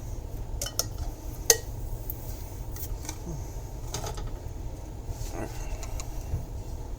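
Manual can opener working on a can of jalapeños: a few separate metal clicks and knocks, the sharpest about a second and a half in.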